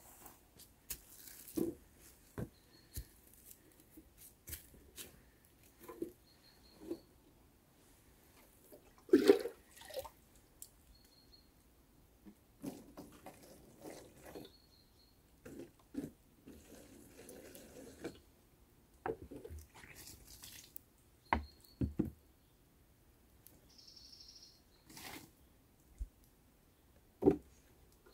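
Water poured from a plastic jug in a few short splashing pours, amid scattered clicks and knocks of plastic bottles being handled; the loudest knock comes about nine seconds in.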